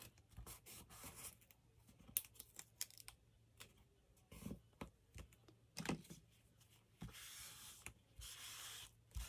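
Quiet handling of paper scraps: light rustles, taps and clicks, then two short rasping paper sounds near the end, each under a second long.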